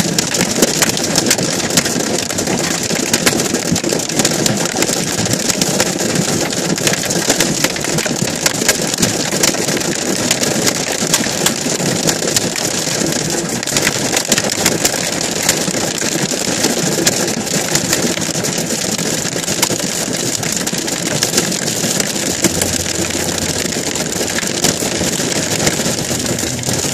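Small hail falling with rain, a dense, steady patter of countless tiny hits.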